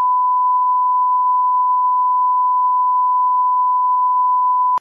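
Broadcast line-up test tone: one steady, unbroken beep, the reference tone played with colour bars at the head of a programme tape. It cuts off suddenly at the end.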